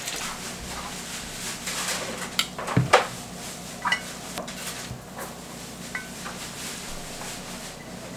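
Metal tongs clinking and scraping on a ceramic plate as sauced pieces of fried meat are set down: a handful of sharp clinks, the loudest about three seconds in, over a steady faint hiss.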